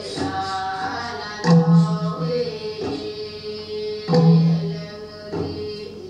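Recorded Temiar healing song: a singing voice over a low, pitched percussive beat that falls about every two and a half seconds.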